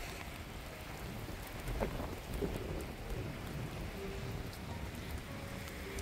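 Steady heavy rain falling, with a few sharper drop impacts about two seconds in.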